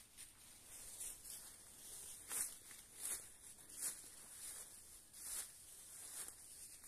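A hiker's footsteps on a trail, a step roughly every three-quarters of a second.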